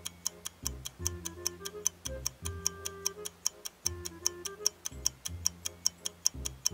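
Quiz countdown-timer track: an even clock-like ticking at about four ticks a second over a simple backing tune of short bass and melody notes, playing while the time to guess runs down.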